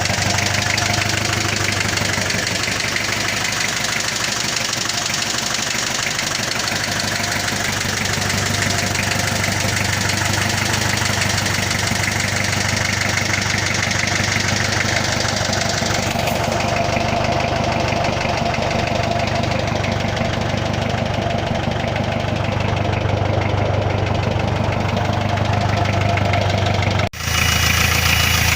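Hyundai Starex 2.5 TD diesel engine running steadily with a knock, damage that follows a turbocharger failure.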